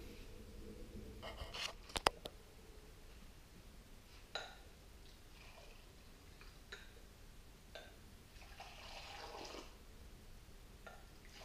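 Milk tea being poured from one glass into another to froth it (pulling teh tarik), heard quietly. A few clinks and knocks of the glasses come in the first half, and a pour of liquid splashes into the glass about nine seconds in.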